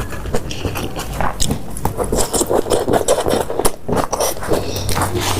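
Eating sounds: chewing with many irregular clicks and scrapes.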